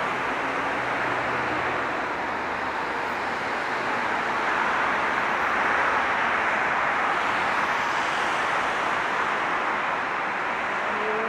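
Steady city road traffic, getting louder through the middle as vehicles pass and easing off near the end.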